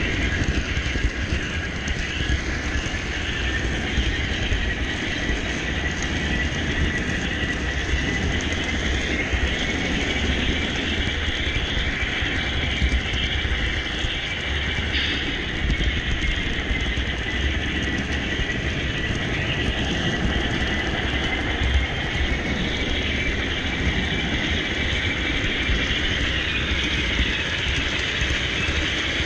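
HO-scale Broadway Limited Baldwin Centipede model locomotive and its train running around the track, heard from a camera riding on the train: a steady rolling rumble of wheels on rail, with a high whine that slowly wavers in pitch.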